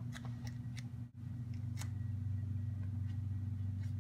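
A few light plastic clicks and taps from a GoPro action camera being handled, bunched in the first two seconds, over a steady low hum.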